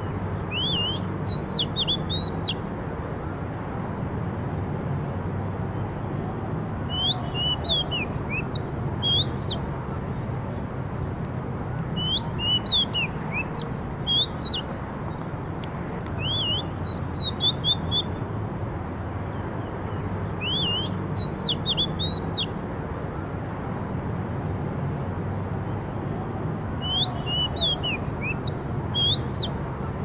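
Oriental magpie-robin singing: six short phrases of rising and falling whistled notes, a few seconds apart, over a steady low rumble.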